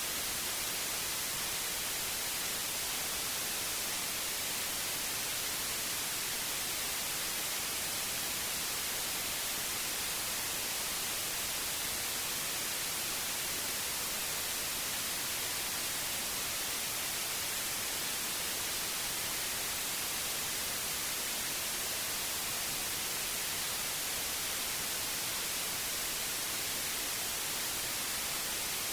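White noise: a steady, even hiss with no change in level or pitch.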